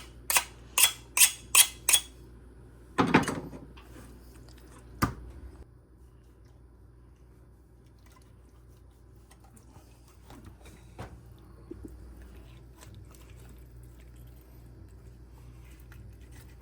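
Kitchen knife being sharpened: four quick, evenly spaced scraping strokes of metal on metal, about two and a half a second, stopping about two seconds in. A longer, louder scrape follows about a second later, then a single sharp knock, then only faint handling sounds.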